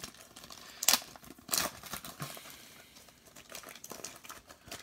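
Paper wrapper of an NBA Hoops basketball card pack being torn open and crinkled by hand, with two sharper rips about one and one and a half seconds in.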